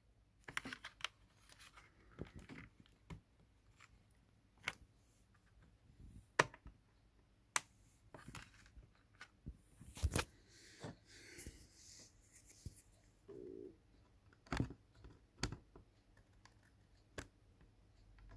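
Scattered small clicks and ticks with light scraping from hands working inside an opened laptop, handling its internal parts and connectors.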